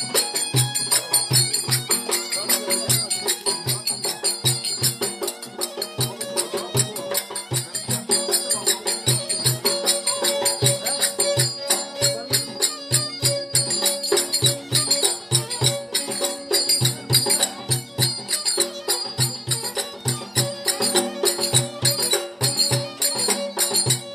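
A lively Turkish folk dance tune (oyun havası) played live: a kemane, a violin bowed upright on the knee, carries the melody over a large frame drum keeping a steady beat of about two to three strokes a second.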